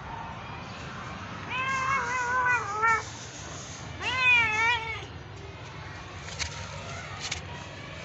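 Domestic cat meowing twice: first a long, wavering meow, then a shorter one that rises and falls in pitch.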